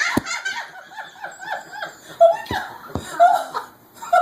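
People laughing in short repeated bursts, with a few sharp knocks, one just after the start and two more around the middle.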